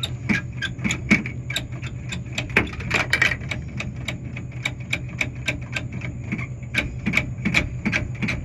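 Rapid, repeated clicking of a soda vending machine's coin return being worked by hand, about three clicks a second, over the machine's steady low hum.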